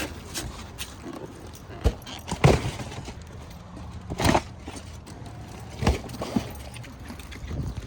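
Boxes and snack packages being handled and set down: a few scattered knocks and thumps, the loudest about two and a half and four seconds in.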